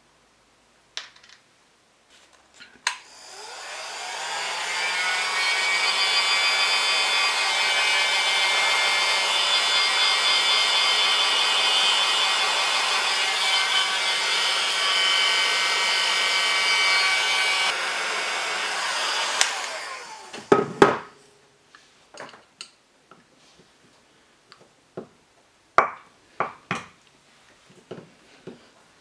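A small high-speed electric power tool spins up with a rising whine and runs steadily for about sixteen seconds with a rough, grinding edge. It then winds down and stops, followed by a few light clicks and clinks.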